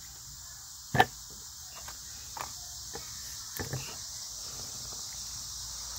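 Crickets chirping steadily in the background. A sharp knock about a second in, and a few lighter knocks a little later, as a boxed firework cake is handled and set down on a wooden board.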